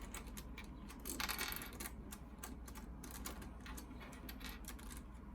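Loose plastic pieces of a 5x5 Rubik's cube clicking and clattering as they are handled and fitted together, with a short, denser rattle about a second in.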